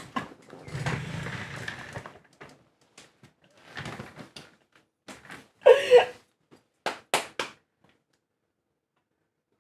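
Rustling, knocks and thumps of a person getting up from a chair and flopping onto a bed, with three sharp slaps about seven seconds in.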